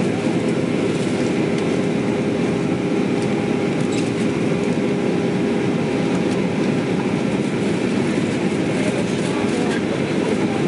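Steady cabin noise inside an Airbus A321-231 airliner in flight on its descent: an even rumble of airflow and its IAE V2500 turbofans, with a faint steady hum running through it.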